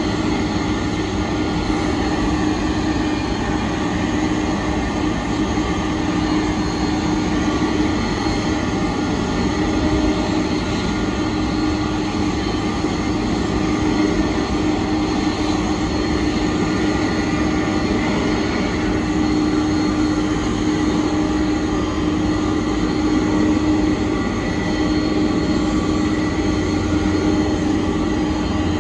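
Boeing 747-400 LCF Dreamlifter's turbofan engines running at idle: a steady rumble and whine with several held tones, a low hum the strongest.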